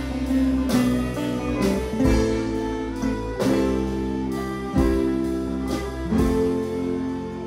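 A live acoustic band playing a slow bluegrass tune: guitar, upright bass and fiddle, with long held notes that change about once a second.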